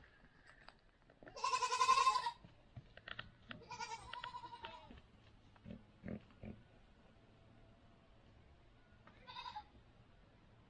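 Goats bleating: a loud, quavering bleat about a second and a half in, a second bleat around four seconds, and a short one near the end, with a few faint knocks in between.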